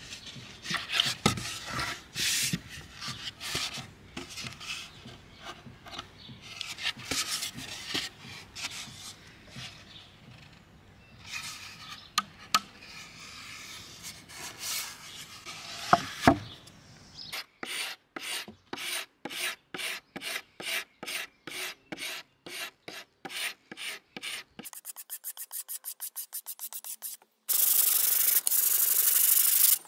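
Plywood chair seat being sanded by hand with a sanding block: rasping back-and-forth strokes, at about two a second in the middle, then quicker, and a loud steady scrub near the end.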